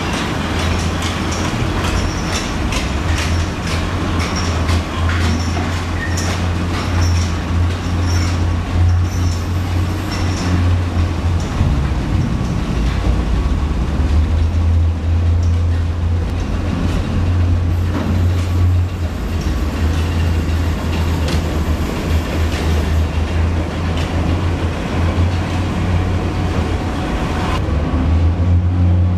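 Underground mining machinery running steadily: a loud low drone with rattling and clattering over it.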